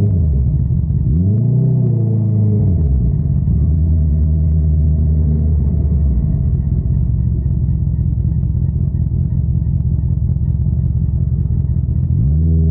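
Honda CBR650R's inline-four engine through an Akrapovic exhaust. The pitch falls at the start, then a quick rev rises and falls about a second in. It holds steady, drops to a lower steady note around six seconds, and climbs sharply again near the end.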